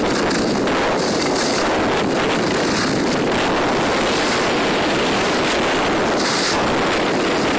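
Steady rush of wind noise on the microphone of a camera carried by a skier moving downhill, mixed with skis hissing over packed snow, with a few brief louder hisses.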